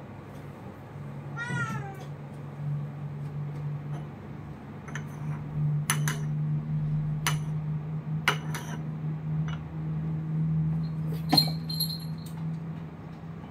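A cat meows once, briefly, about a second and a half in, the call falling in pitch, over a low steady hum. Porcelain gaiwan lid and cup clink several times in the second half, the sharpest clink near the end.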